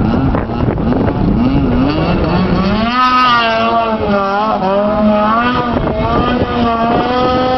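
Snowmobile engine running at high revs as the sled skims across open water, its pitch rising about two seconds in and then wavering up and down. Wind buffets the microphone in the first few seconds.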